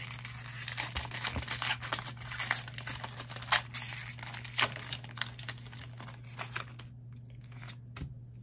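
Pokémon booster pack wrapper being torn open and crinkled, a busy run of sharp crackles that thins out and goes quiet after about seven seconds, with a soft thump near the end.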